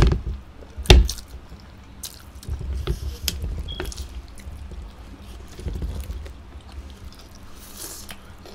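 Wet eating sounds of noodles being slurped and chewed, with two sharp clicks about a second apart at the start.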